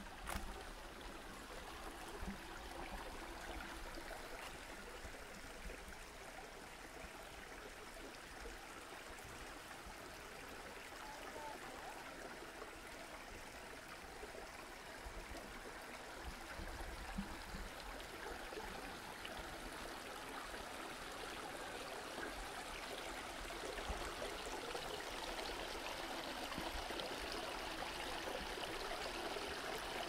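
Steady running water, as of a small stream, growing louder through the second half.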